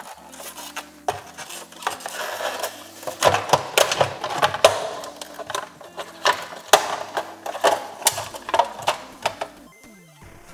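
Plastic parts of a BMW X5 E70 LED tail light being pried apart and handled: a run of sharp clicks, snaps and knocks with scraping in the middle, as the freed inner lens section comes out of the housing.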